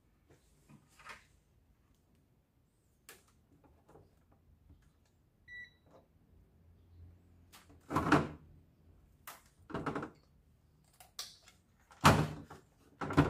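Hands handling washing-machine water inlet valves and a digital multimeter on the machine's open top panel: scattered knocks and rattles, the loudest about eight and twelve seconds in. A short electronic beep about halfway through as the multimeter is switched on.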